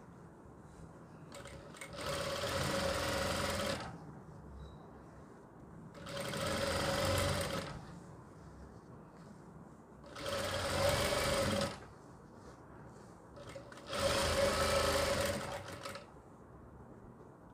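Jack industrial lockstitch sewing machine stitching a facing strip down in four short runs of about two seconds each. Its motor holds a steady whine through each run, with quiet pauses between runs.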